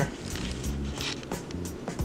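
Background music with a steady beat: crisp ticks at an even pace over low bass pulses.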